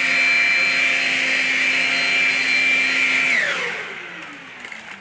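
Shark Rocket self-cleaning stick vacuum running with a steady high whine. It is switched off about three seconds in, and its motor whine falls in pitch as it spins down.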